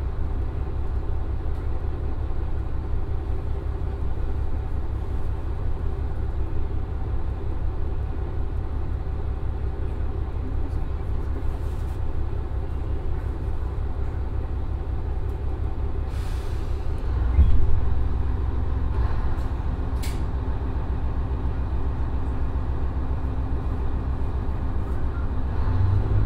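Komatsu SA6D140HE-2 common-rail diesel engine of a JR Shikoku 1500 series railcar idling steadily, heard from inside the cabin. About 16 seconds in there is a short hiss of air, and the low engine note then grows louder. Near the end the engine picks up as the railcar starts to pull away.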